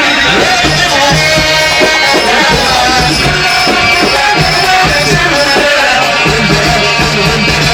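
Loud Egyptian wedding music: a band playing with steady drumming, a bass line and bending melodic lines.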